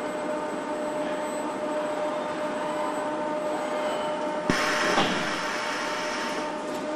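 Car-factory assembly-line machinery running with a steady hum and a couple of thin steady tones. About two-thirds of the way through comes a sharp click, then a burst of hissing that lasts about two seconds, with a second click inside it.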